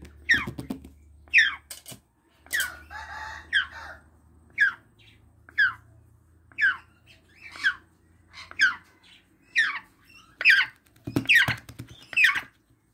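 Young African grey parrot giving a string of short squawks, each falling in pitch, about one a second, with one longer, harsher call about three seconds in.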